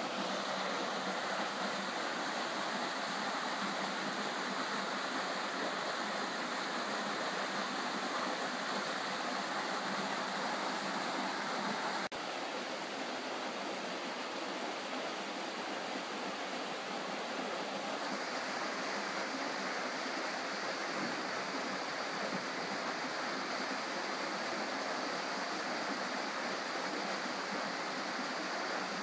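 Small waterfall pouring into a rock pool: a steady, even rush of falling water, with a brief click about twelve seconds in.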